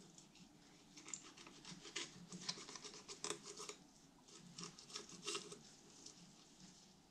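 Fillet knife slicing along a corvina's skeleton, faintly scratching and clicking as the blade rides over the small bones.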